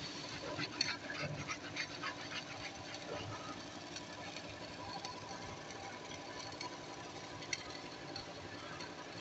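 Hand wire brush scraping over a fresh steel weld seam in irregular short strokes for the first couple of seconds, then fading to a faint steady workshop hum.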